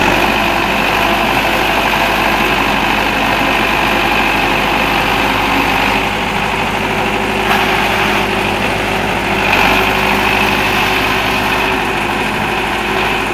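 Farm tractor's diesel engine running steadily and loudly as the tractor works through deep wet mud, its tyres churning in the muck.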